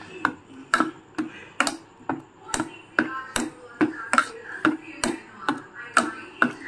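A steel ladle knocking and scraping against a stainless steel pan, about two strokes a second, as a thick mixture of milk, grated coconut, sugar and ghee is stirred continuously while it cooks down.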